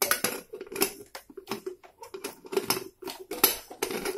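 Aluminium Prestige pressure cooker lid being fitted onto the pot and twisted shut: a run of irregular metal scrapes and clinks of lid against rim.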